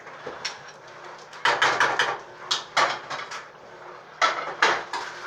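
Kitchen dishes clinking and knocking as oatmeal is dished into a bowl. There is a quick run of sharp clinks about one and a half seconds in, scattered single knocks, and another cluster near the end.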